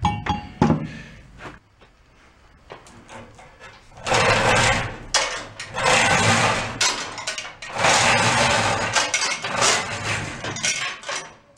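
Manual chain hoist being hauled by its hand chain: the chain rattles and clatters through the hoist in long stretches with short pauses, from about four seconds in until near the end. A few short knocks come at the start.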